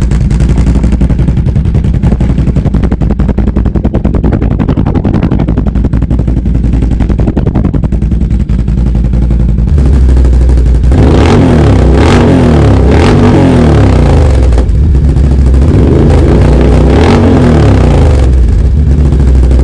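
Can-Am Outlander 1000's V-twin engine running loud through a newly fitted RJWC aftermarket exhaust with its silencer insert not yet fitted: a deep idle, then revved up and back down twice in the second half.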